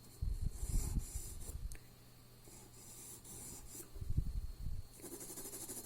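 Pencil scratching across drawing paper in stretches of shading strokes. Low dull rumbles, the loudest sound, come in a long patch near the start and a shorter one around four seconds in.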